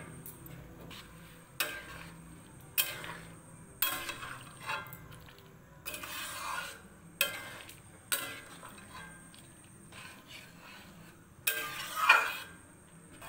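A metal spatula stirring peas in a metal kadai, scraping and knocking against the pan about once a second. Near the end a metal lid clatters onto the pan, the loudest sound here.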